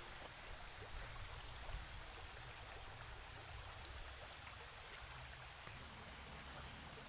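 Faint, steady rush of flowing water.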